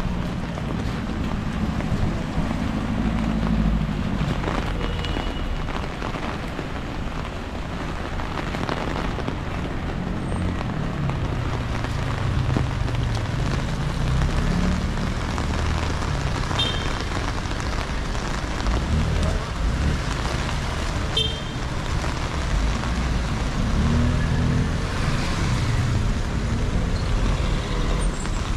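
City street traffic: cars passing and engines running over a steady hiss, with the low engine rumble swelling as vehicles go by.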